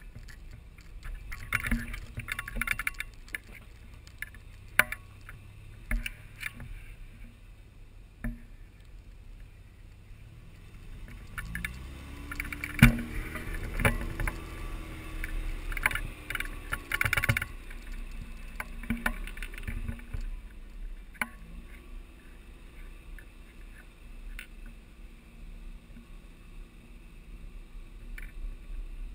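Off-road 4x4 truck engines running at low speed as the trucks crawl up a rough dirt trail, with scattered sharp knocks and clatters. About twelve seconds in, an engine revs up, its pitch rising and holding for several seconds, then it drops back to a low rumble.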